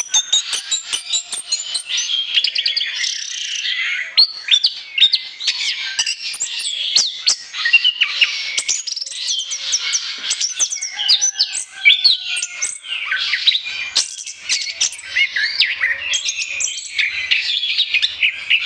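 Orange-headed thrush singing without a break: a fast, varied stream of chirps, sweeping whistles and trills.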